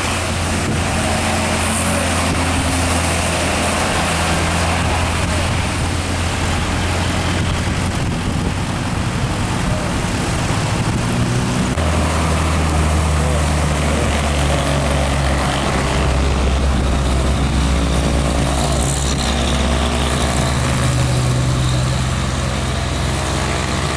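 Diesel engine of a heavily loaded truck labouring as it climbs slowly uphill, with a steady low drone. The engine note shifts about halfway through.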